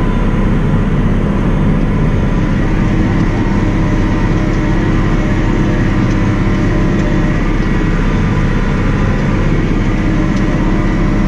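Massey Ferguson 6480 tractor's six-cylinder diesel engine running steadily under load, heard from inside the cab as it pulls and drives a fertiliser spreader across a field.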